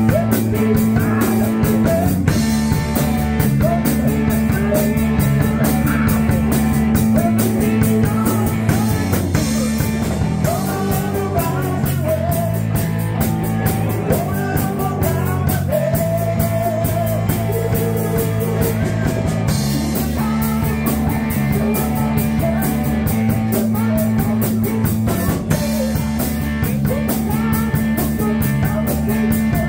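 Live rock band playing: electric bass, electric guitar and drum kit, with a sung vocal line over them.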